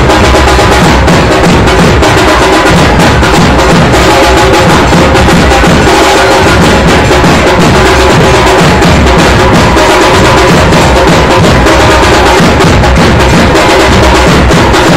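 Dhol and tasha drums played loudly in dense, continuous beating.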